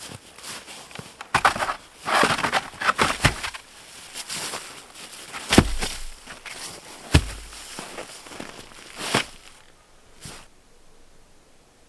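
Wooden pallets being set down and knocked into place on the ground, with two heavy wooden thuds about five and a half and seven seconds in and a couple of lighter knocks later. Crunching footsteps in snow and dry leaves come in the first few seconds.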